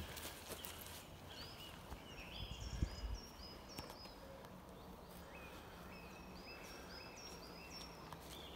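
Small birds singing: runs of short, high, repeated chirped notes over a faint background hush. A single dull thud near the three-second mark.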